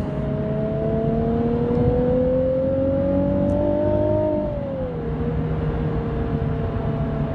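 Car engine and road noise heard from inside the cabin. The engine's whine rises slowly as the car accelerates for about four seconds, then drops back as it eases off and settles to a steady cruise.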